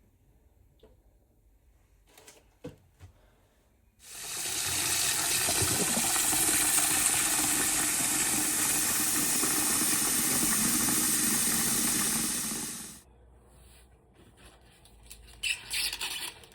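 A steady rushing hiss that starts abruptly about four seconds in and stops about nine seconds later, followed by light clattering near the end.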